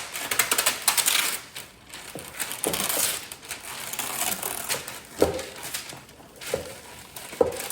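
Kitchen clatter of baking gear: a quick run of clinks and rustling, then a few separate sharp knocks about five, six and a half and seven and a half seconds in.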